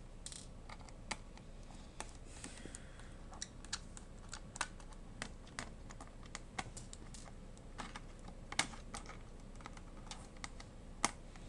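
Irregular light clicks and ticks of a small screwdriver and screws being worked out of a Fujitsu Siemens Lifebook T900 laptop's plastic case.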